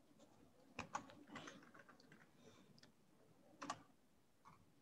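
Faint keystrokes on a computer keyboard as a date is typed: about half a dozen separate, irregularly spaced clicks.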